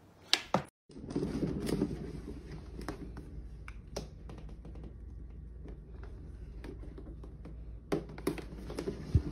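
Cat exercise wheel turning under a walking cat: a steady low rumble with scattered light taps and clicks from the paws on the track, a few sharper clicks near the end.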